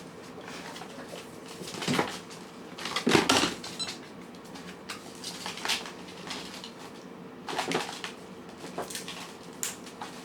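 Cats and kittens eating from food bowls: scattered short clinks and clatters of the bowls being knocked as they eat, the loudest cluster about three seconds in.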